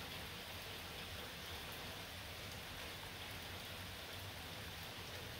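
A light rain shower falling steadily, an even hiss with a few faint drop ticks.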